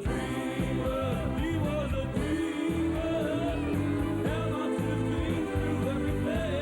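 Music: a pop song with sung, held notes over a steady band accompaniment.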